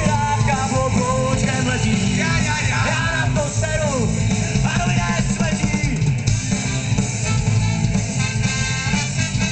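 Live ska band playing, with group singing and a horn section of saxophones, trumpet and trombone over electric guitar and drums.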